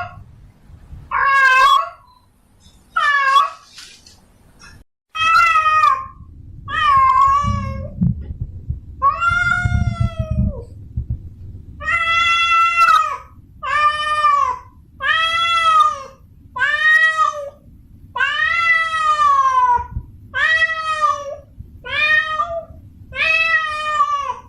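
Female cat in heat yowling for a mate: over a dozen drawn-out meows, each about a second long, rising then falling in pitch and coming every second or two.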